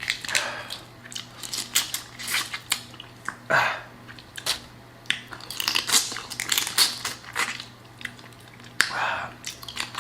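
Close-up eating sounds of a seafood boil: crawfish shells cracking and snapping as they are peeled by hand, with chewing and wet mouth noises in irregular bursts.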